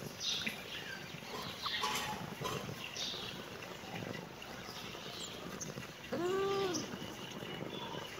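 Kitten meowing once, about six seconds in: a single drawn-out meow that rises and then falls in pitch.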